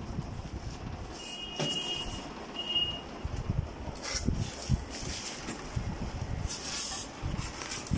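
Packaging being handled: plastic wrap crinkling and styrofoam and cardboard rustling and bumping around a boxed gas hob. Two short high beeps sound within the first three seconds.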